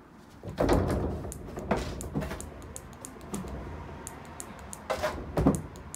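A cat leaping after a light and landing. Its paws strike the sliding doors and the carpet in several dull thumps, among a scatter of small, sharp clicks.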